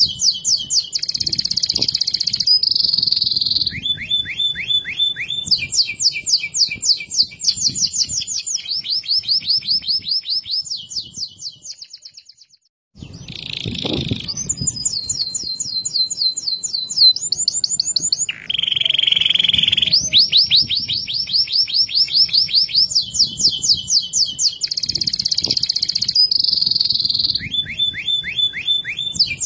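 Domestic canary singing a long song of fast trills, one rapid phrase after another at changing pitches. The song fades out about twelve seconds in and starts again a moment later.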